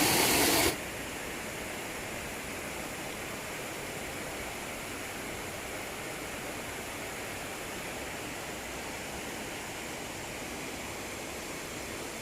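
Steady rush of a waterfall and its stream, an even hiss with no rhythm. A louder burst of the same rushing noise cuts off suddenly under a second in.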